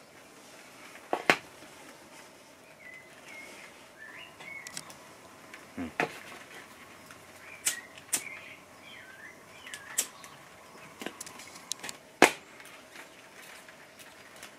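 A flint-wheel lighter is struck twice in quick succession about eight seconds in. Other sharp clicks and small pops from handling and puffing on a cigarillo come at scattered moments, with faint high chirps in the background.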